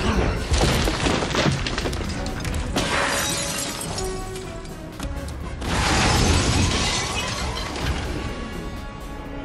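Glass shattering and crashing several times, from the mech suit's cockpit canopy breaking, over a film score.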